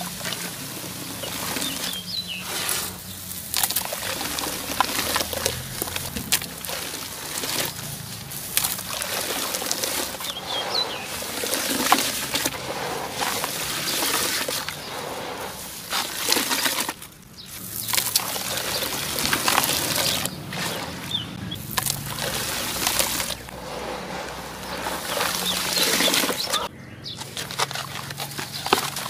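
Hands crushing and crumbling dry, crunchy lumps: dense crackling and crunching with loose crumbs falling, breaking off briefly about two-thirds of the way through and again near the end.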